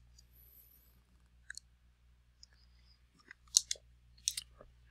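A few sharp clicks over a low steady hum, the loudest about three and a half and about four and a quarter seconds in.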